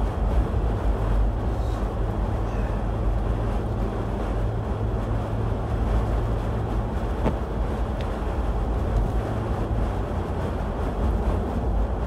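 Steady low rumble of a car's engine and tyres on a slushy, snow-covered highway, heard inside the moving car's cabin.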